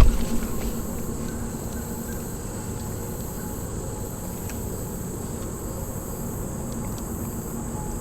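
Insects singing with a steady high-pitched drone over a low, even rush of background noise, with one sharp knock right at the start.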